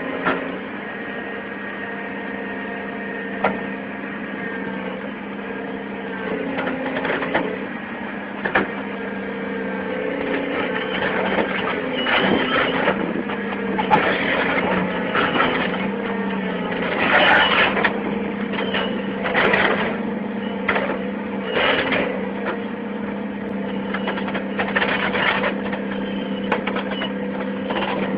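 A heavy machine's engine running steadily, with a series of sharp knocks, cracks and short scraping bursts that grow more frequent about a third of the way in.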